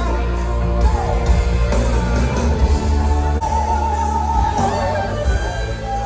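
Live rock band playing loudly through a concert sound system, with guitars, a heavy bass end and a singing voice.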